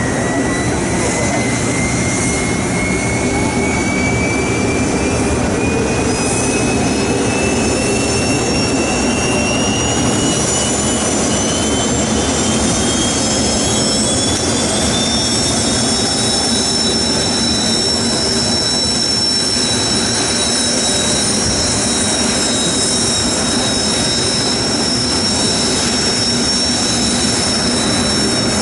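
Kawasaki T-4 jet trainers' turbofan engines spooling up on the ground: a high whine rising steadily in pitch through the first half and then levelling off into a steady whine, over a constant engine rumble.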